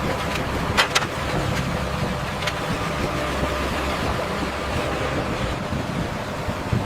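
Steady engine-like machinery rumble, with a few sharp clicks about a second in and again about two and a half seconds in.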